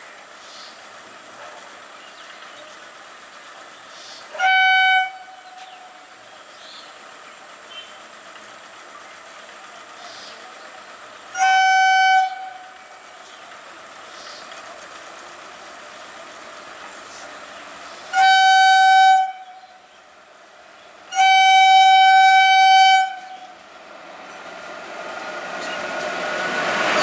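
Train horn sounding four times: two short blasts several seconds apart, then a blast of about a second and a longer one of about two seconds. Near the end the rumble of the approaching train grows steadily louder.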